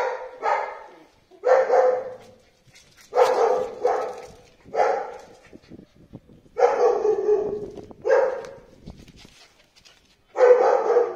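A dog barking repeatedly in short, high-pitched barks, some in quick pairs, with brief pauses between.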